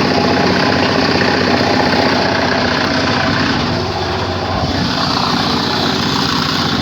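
An engine running steadily, dipping slightly in level about four seconds in.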